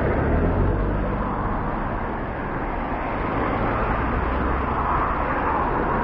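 Road traffic passing on a bridge: a steady rumble with tyre noise, heaviest in the first couple of seconds.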